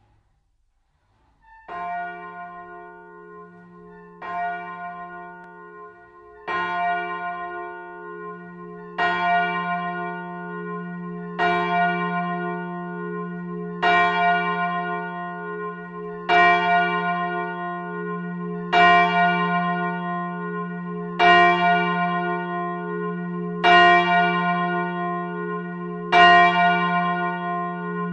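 A single church bell tolling slowly, one stroke about every two and a half seconds, starting about a second and a half in. Each stroke rings on into the next over a steady low hum, and the strokes grow louder over the first few.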